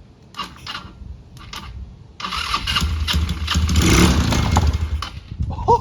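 GY6 scooter engine running on starting fluid: a few short sputters, then it catches and runs hard under throttle for about three seconds, loudest near the end, before dropping away.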